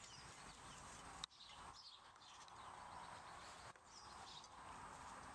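Near silence outdoors: faint birds chirping in the distance over a low hiss, with one brief click about a second in.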